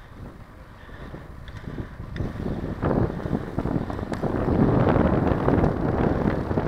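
Wind buffeting the microphone of a Mobius action camera on a moving bicycle, a gusty rumble that is fairly quiet at first and grows louder from about three seconds in.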